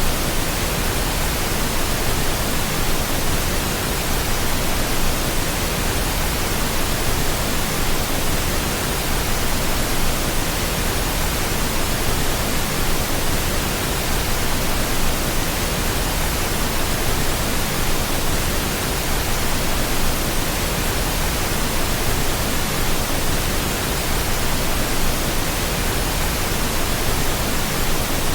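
Steady pink noise: an even, unchanging hiss, generated for sleep masking.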